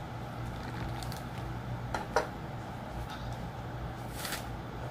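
Steady low room hum with a few light knocks about two seconds in and a short scrape about four seconds in, as a metal sculpting knife is handled and picked up off the tabletop.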